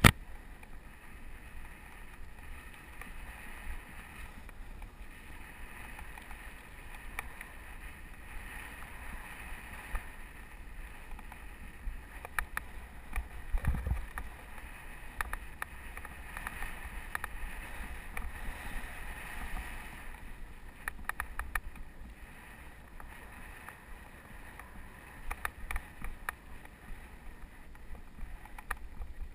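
Wind buffeting the microphone of a helmet-mounted camera while a mountain bike rolls over a dirt trail, a steady rumble with the hiss of tyres on dirt. Scattered clicks and knocks from bumps and bike rattles, the loudest about halfway through.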